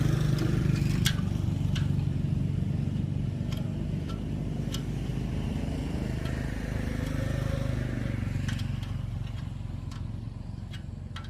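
A small engine running steadily at a constant speed, with a few light clicks over it.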